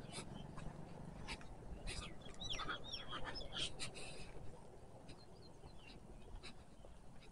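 Faint bird calls outdoors: scattered short high chirps, busiest in the middle few seconds, over a low steady hiss.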